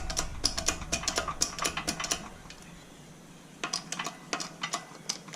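Metal clicks and clinks of tools on a hydraulic shop press while a new bearing is pressed into a tensioner pulley with a socket: a quick run of clicks for about two seconds, a pause, then a few more.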